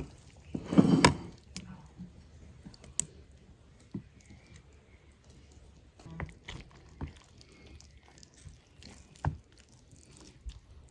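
A wooden spatula cutting through a baked casserole and scraping and knocking against its metal baking tray: a louder clatter about a second in, then scattered soft clicks and taps.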